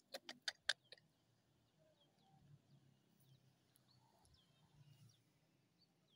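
About six sharp clicks in quick succession within the first second, then faint birds chirping in short falling notes over near silence.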